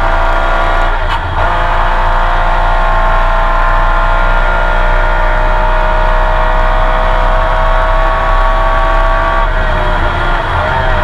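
Porsche 911 RSR's flat-six racing engine heard from onboard, running hard under load, with a quick gear change about a second in. Near the end the pitch wavers and shifts as the revs change.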